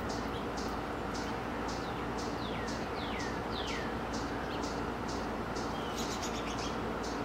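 Wild birds calling in the background: a steady series of short, high notes about two or three a second, with a few downslurred whistles in the middle. A steady low background noise runs underneath.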